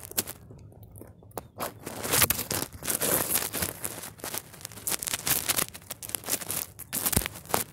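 Phone microphone handling noise: irregular rubbing, scraping and crackling with sharp clicks as the phone is moved about and set down.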